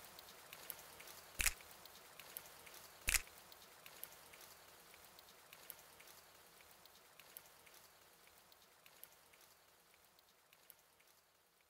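Wood campfire crackling: faint scattered pops and ticks, with two louder snaps in the first few seconds, thinning out after that.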